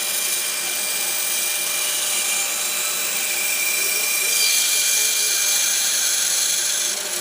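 Bandsaw running with its blade cutting through wood, a steady whir and hiss with a faint high tone; the high hiss grows brighter about four seconds in.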